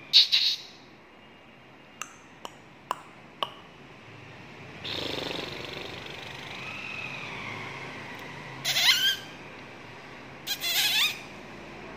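Persian kittens mewing in short, high-pitched squeaky calls: one right at the start and two more near the end. A few light ticks come a couple of seconds in.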